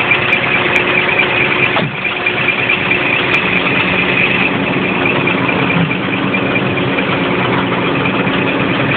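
Scania truck diesel engine idling steadily while it builds up air pressure in the brake system.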